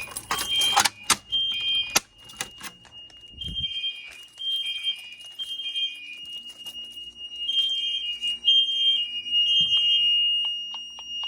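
Fire alarm horns sounding in the temporal-3 evacuation pattern: three loud high-pitched blasts, a pause, then three more, repeated. A steady high tone sounds underneath, and a few clicks and knocks come in the first two seconds.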